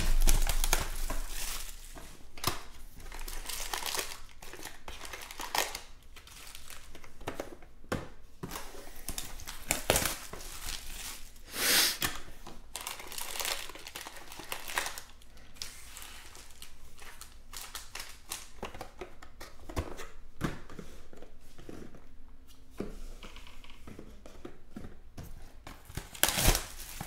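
Plastic wrapping torn off a sealed box of trading cards, followed by crinkling and rustling as the foil-wrapped card packs are pulled out and handled. The rustles come in irregular bursts, loudest right at the start, about halfway through and near the end.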